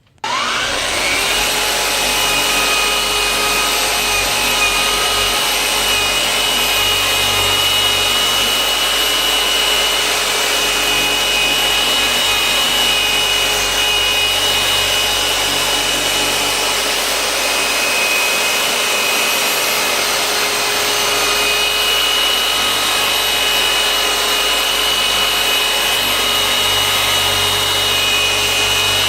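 An electric power tool switches on and its whine rises quickly as the motor spins up. It then runs steadily, a high whine over a broad hiss, as it works the glass for scratch removal.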